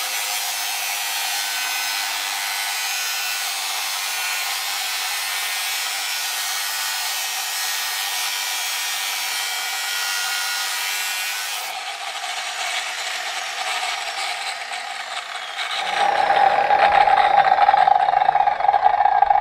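Angle grinder cutting metal with an abrasive cut-off disc: a loud, steady grinding hiss. About twelve seconds in the sound changes, and from about sixteen seconds the grinder spins free with no load, giving a loud steady whine.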